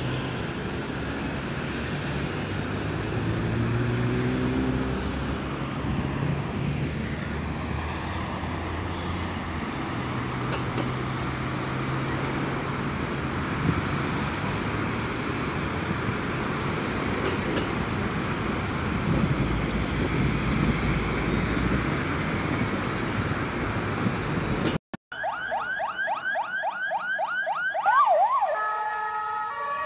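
Heavy highway traffic noise with the sirens of traffic police cars wailing through it. Near the end the traffic sound cuts off to a fast, repeating electronic yelp-like warble, followed by a short sequence of stepped electronic tones.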